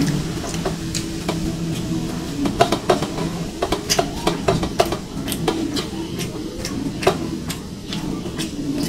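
Close-up eating sounds: rice and curry being mixed and scooped on a plate, with wet chewing and many quick irregular smacks and clicks.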